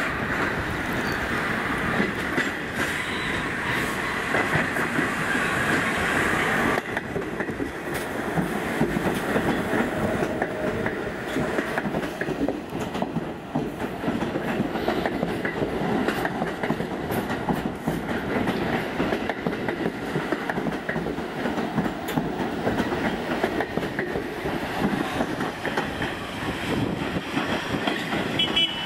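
Subway rail cars rolling over the track: steady wheel rumble and clatter over the rails, with a higher wheel-on-rail hiss for the first several seconds that drops away abruptly about seven seconds in.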